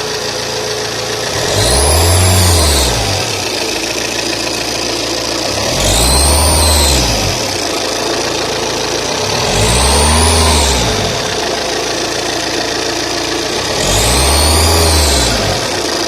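Saab 9-3 TTiD 1.9 twin-turbo diesel engine idling and revved four times, each rev rising and falling over about two seconds, with a high whistle that climbs and drops along with the revs. This is the noise the engine makes when accelerated, which the owner is recording as a fault.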